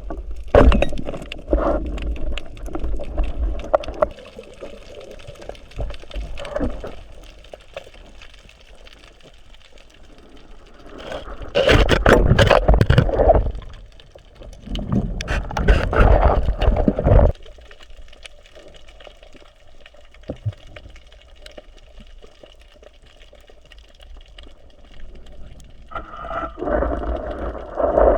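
Water splashing and sloshing in several rough bursts a few seconds long, with quieter gaps between.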